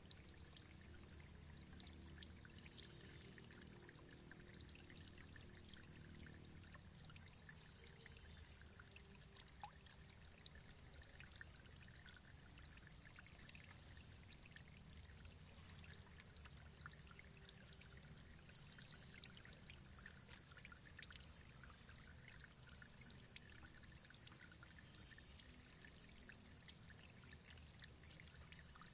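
Faint running water, pouring and trickling steadily, with many small splashes.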